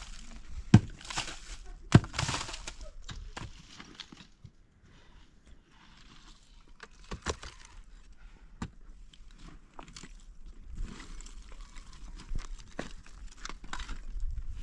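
A hand digging tool striking dry, stony earth: two sharp blows about a second apart near the start, each followed by a scatter of soil and grit, then softer scraping and rustling of dirt and stones, with a couple more knocks midway.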